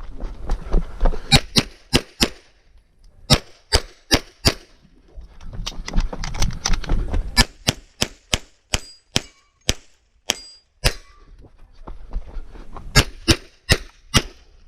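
CZ SP-01 pistol firing a USPSA stage: sharp shots come in quick strings of two to four, with short pauses and movement noise between strings.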